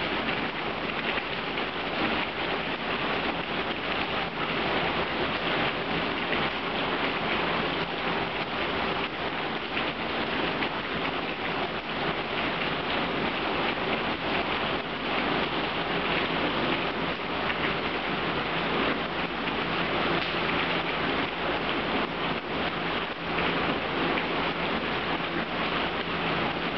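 Heavy rain falling steadily: a dense, even hiss with the patter of many individual drops striking hard surfaces.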